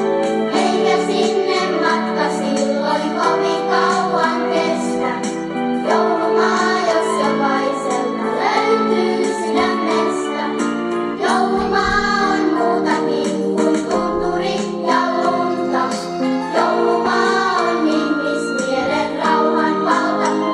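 A song playing: singing over a sustained instrumental backing.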